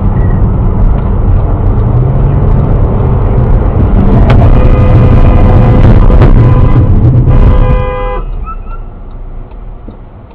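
Loud road and engine noise inside a car moving at speed, with a car horn sounding for about three seconds starting about four seconds in. The noise then dies away as the car brakes to nearly a stop.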